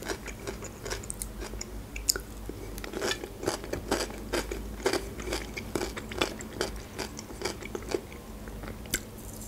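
Close-up mouth sounds of chewing a mouthful of fresh cucumber and tomato salad: irregular crunches and wet clicks several times a second.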